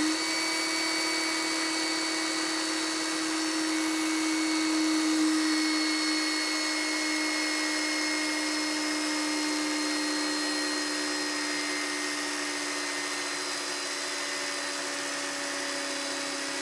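DeWalt DCF885 20V MAX brushed impact driver running flat out with no load: a steady motor whine, the hammer mechanism not engaging. Its pitch sags slightly over the run as the RPM drops on the small 1.3 Ah battery.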